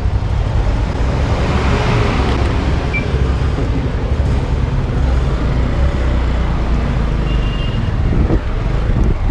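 Riding a motorcycle in road traffic: an engine runs steadily under heavy wind and road noise. A swell of noise about two seconds in sounds like another vehicle passing.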